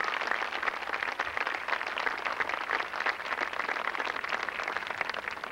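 Large audience applauding: many hands clapping in a steady, dense patter.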